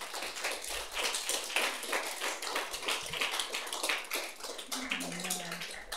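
Audience applauding: a dense patter of hand claps that thins out near the end, where a voice is briefly heard.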